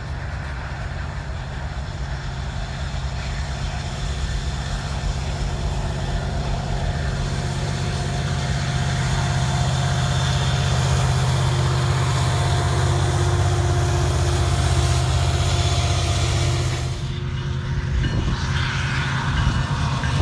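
Union Pacific diesel freight train passing: refrigerated boxcars rolling over the rails, then the diesel locomotives at the rear of the train running past, the rumble growing steadily louder. About three-quarters through it changes suddenly to another train's line of Union Pacific diesel locomotives approaching.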